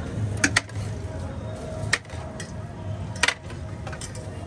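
Sharp clinks of metal serving utensils striking pots and plates, about five at irregular spacing, some in quick pairs, over background music.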